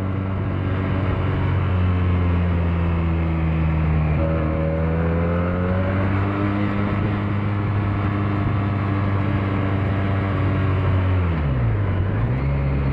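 Benelli 302 parallel-twin motorcycle engine running under way through its exhaust, with its note rising gently a few seconds in and holding steady. Near the end the engine note drops sharply and settles at a lower pitch.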